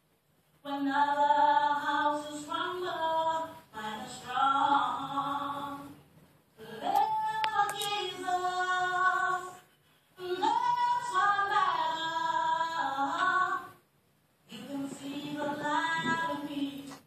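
A woman singing solo into a microphone with no accompaniment, in held, sliding phrases of a few seconds each, separated by short pauses in which nothing else is heard.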